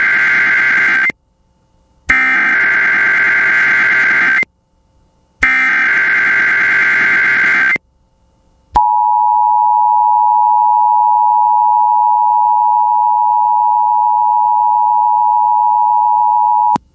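Emergency Alert System alert for a tornado watch: three harsh, warbling SAME digital header bursts, each a couple of seconds long with about a second's gap between, the first already under way. About nine seconds in, the two-tone EAS attention signal begins, a steady dual tone held for about eight seconds that cuts off abruptly.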